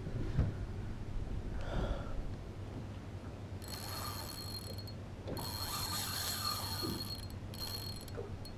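Spinning reel's drag buzzing in three stretches as a hooked mulloway pulls line off against a loosened drag: the first starting about three and a half seconds in, the longest in the middle, a short one near the end.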